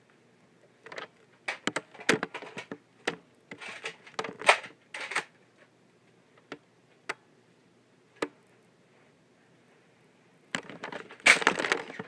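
Scattered sharp clicks and knocks, then a louder flurry of rustling and knocks near the end.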